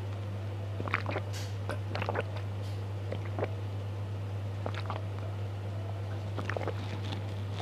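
A person drinking in long gulps from a glass jug, with short wet swallowing and mouth clicks every second or so, over a steady low electrical hum.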